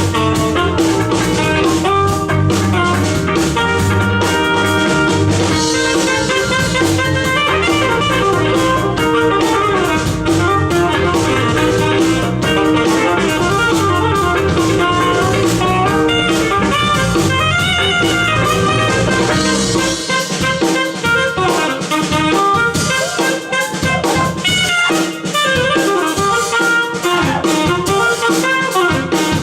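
Live band playing instrumental jazz-fusion: electric guitar over drum kit and bass. About two-thirds of the way through, the low bass end drops out and the band plays on lighter.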